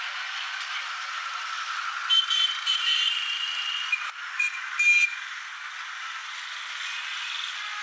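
Steady street traffic noise, with a few short high-pitched tones and sharp clicks standing out about two to five seconds in.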